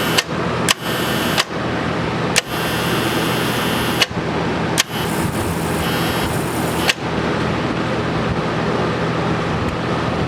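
TIG welder humming steadily while powered up, with about six sharp relay clicks in the first seven seconds. Between some of the clicks a high hiss switches on and off as the relay contacts, still being adjusted, open and close the high-frequency circuit.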